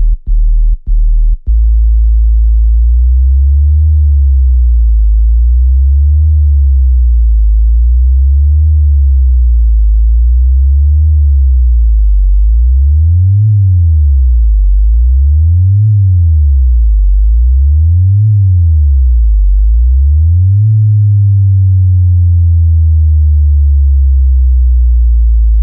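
Synthesized sub-bass test tone for checking speakers: four short bass pulses, then a continuous deep loud hum that sweeps up and down in pitch roughly every two and a half seconds. The swings grow wider about halfway through, and near the end it turns into a slow falling glide.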